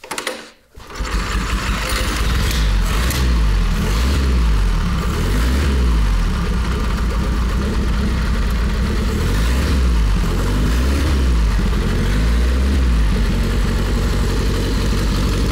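1939 Indian Model 439's air-cooled inline four-cylinder engine kicked over from cold, with choke on and spark retarded, catching under a second in, then running steadily, its speed rising and falling a few times.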